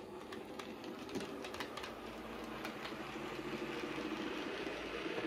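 OO gauge model locomotive running along the layout track: a steady small-motor whirr with clicks from the wheels over the rail, growing louder as the train comes past.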